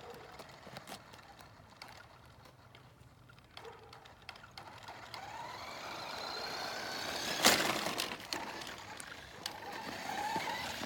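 Electric motor of a remote-control car whining louder and rising in pitch as it speeds up, with one sharp knock about seven and a half seconds in, then more whining near the end.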